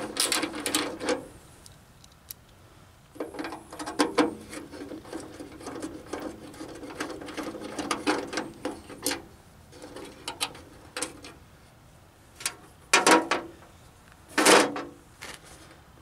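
Ratchet wrench with a T20 Torx bit clicking in several short runs as the screw inside a door handle is backed out. Two louder knocks follow near the end.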